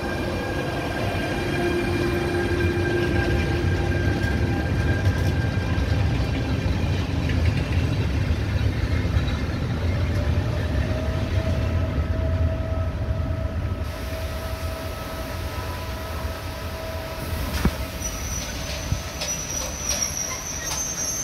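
Tarpaulin-covered freight wagons rolling past on a curve: a steady low rumble of wheels on rail, with thin wheel squeals coming and going. A high squeal and a few sharp clicks join near the end.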